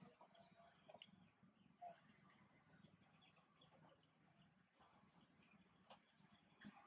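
Near silence: faint outdoor background with a few soft, short high chirps and a couple of light clicks.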